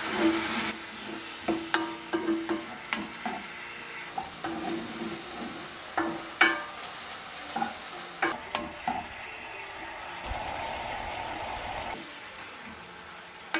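Sliced garlic sizzling in a bubbling soy-sauce glaze in a cast-iron frying pan, stirred with a wooden spatula that clicks and scrapes against the pan at irregular intervals as the glaze reduces.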